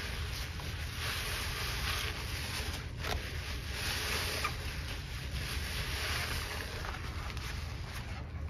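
Wet sponge being squeezed and kneaded in a basin of thick foamy paste of powdered cleanser and pine cleaner: squelching and sloshing that swells with each squeeze, about once a second.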